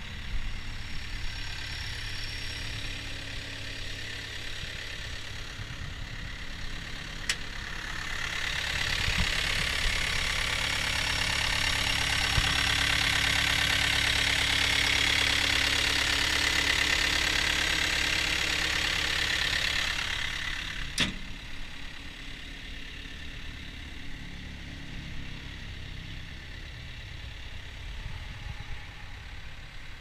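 Caterpillar 242B3 skid steer's diesel engine idling steadily. For a stretch in the middle it is louder, with a strong fan-like hiss, heard close up at the open engine bay. There is a sharp click at the start and at the end of that stretch.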